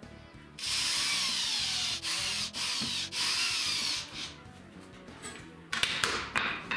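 Cordless drill running up through the sled's laminate base into the oak fence in about four runs with brief pauses, its motor whine rising and falling under load. Near the end there are a few short sharp knocks and scrapes.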